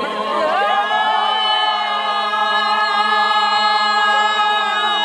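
Several voices singing together without accompaniment, sliding in and then holding one long note for several seconds before it breaks off.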